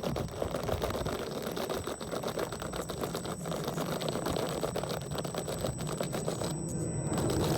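1/10 scale RC rock crawler driving: its electric motor gives a thin steady high whine over a dense rattle of clicks from the drivetrain and tyres working over the ground.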